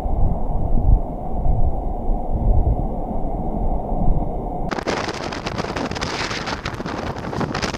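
Storm wind buffeting the microphone over a muffled rush of water as a cruise ship's deck pool sloshes and spills over in heavy seas. About two-thirds of the way through, the sound cuts abruptly to a brighter, hissing rush of breaking ocean surf and wind.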